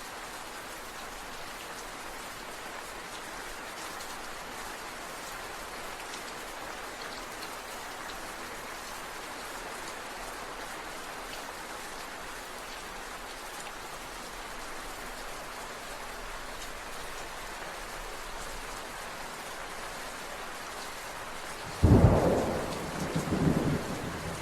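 Steady rain falling. Near the end, a sudden loud crack of thunder that goes on rumbling.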